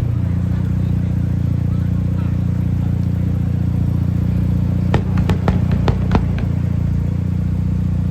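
Car engines idling steadily, with a quick string of about eight sharp firework cracks starting about five seconds in.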